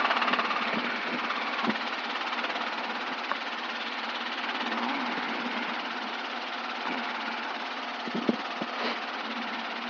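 Steady cockpit noise of a Robinson R22 helicopter in flight: engine and rotor running evenly, loud and unbroken.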